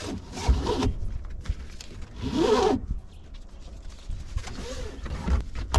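Tie-down strap webbing pulled quickly through its buckle as the strap is cinched down, a rasping zip with a wavering pitch. This happens three times, the loudest pull about two seconds in and a fainter one near the end.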